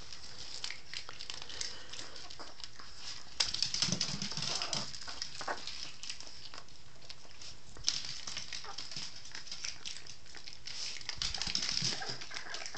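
A dog eating cereal: a run of crunches and clicks as it chews and picks up the pieces, busier and louder about three and a half seconds in and again near the end.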